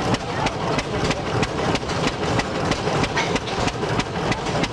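10 hp International Harvester Model M gas engine running under load with a steady beat about four times a second, belted to a 24-inch mill grinding corn.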